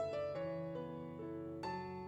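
Background music: soft piano notes played one after another, with a new chord struck near the end.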